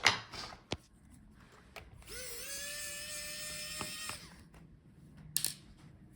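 Electric screwdriver backing out a laptop motherboard screw: its small motor spins up with a slight rise in pitch, then runs steadily for about two seconds before stopping. Short clicks of tool and screws on the laptop's frame come near the start and again near the end.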